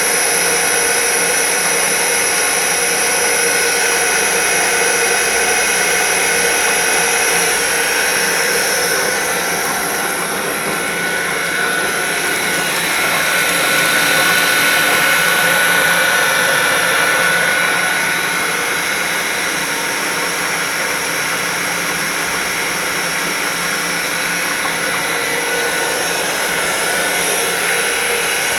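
Sanso Electric PHP-4043BHZ7 three-phase hot-water circulation pump, a commercial dishwasher's main wash pump, running steadily with a whine. Its motor makes what the owner feels is a slight abnormal noise.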